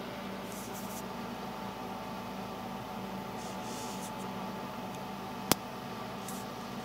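Steady background hum and hiss with faint rustles now and then, and one sharp click about five and a half seconds in.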